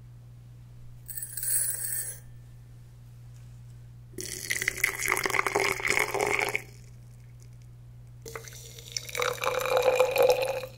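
Hot water poured through a stainless steel funnel into a glass bottle onto loose Earl Grey tea leaves, one pour of about two and a half seconds, then a second bottle filled the same way near the end. A brief ringing sound comes about a second in.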